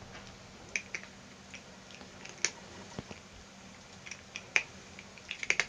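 Cat eating dry kibble: scattered faint crisp crunches and clicks, a few of them close together near the end.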